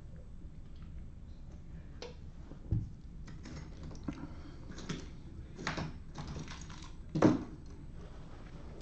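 A computer keyboard typed on in a handful of scattered, irregular keystrokes and taps, one louder knock near the end.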